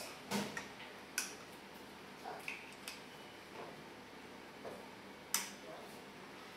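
Scattered light metallic clicks and taps as a steel pressure roller and its ball bearing are slid onto the axle of the roller holder and seated. The sharpest click comes about five seconds in.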